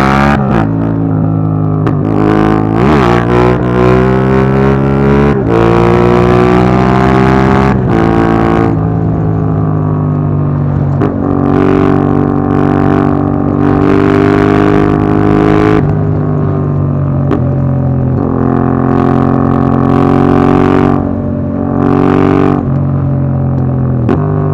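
Yamaha MT-07's parallel-twin engine through an Akrapovic Racing Line exhaust with its dB killer fitted, pulling through the gears on the road. Its pitch rises under throttle and drops at each of several gear changes, with stretches held at a steady note between them.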